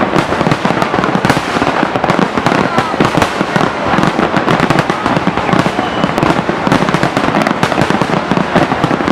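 Large fireworks display: a continuous, dense barrage of shell bangs and crackling.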